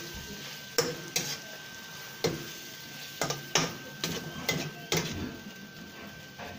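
Chicken pieces frying in a wok with a steady sizzle, stirred with a metal utensil that knocks and scrapes against the pan about ten times at irregular intervals.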